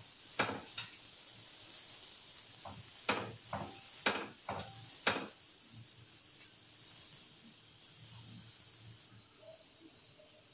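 Radish paratha frying in oil on an iron tawa with a steady faint sizzle, while a flat spatula taps and scrapes against the pan about eight times in the first five seconds as it presses and turns the paratha.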